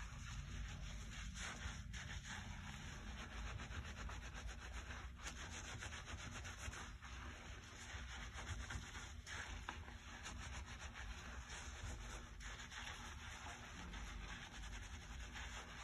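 Fingers scrubbing and massaging shampoo-lathered hair against the scalp: a steady, continuous rubbing and squishing of suds.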